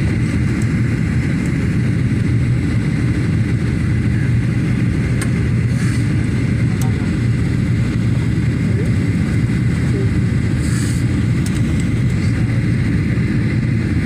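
Steady roar of a jet airliner's engines and rushing air heard from inside the passenger cabin, deep and even, with a faint steady high whine on top.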